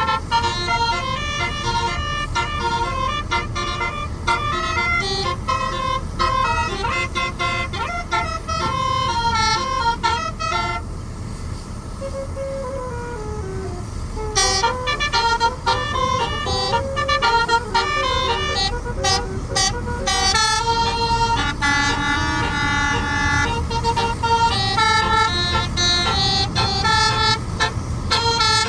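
Basuri telolet horn on a medium-size tour bus playing a fast melody of stepped, multi-tone notes, with a short stretch of sliding notes near the middle.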